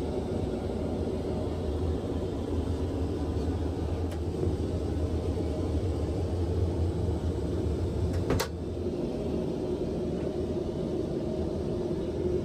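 Steady low rumble of a moving vehicle, with a single sharp click about eight seconds in, after which it is slightly quieter.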